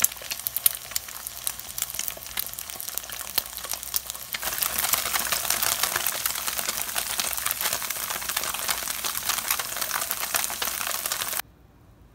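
Oil sizzling and crackling in a frying pan, first under a frying egg, then louder and denser under pieces of tofu pan-frying. The sizzle cuts off suddenly near the end.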